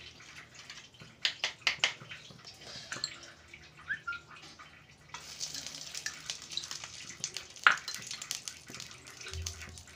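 A spoon tapping and scraping ghee out of a small bowl into a kadai, with scattered clicks. From about five seconds in, a faint steady hiss as the ghee starts to melt and sizzle in the hot pan, with one sharp click near the end.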